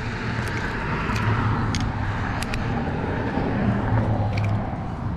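Road traffic on the neighbouring highway bridge: a steady rush with a low hum that swells and eases slightly. A few short sharp clicks sound over it.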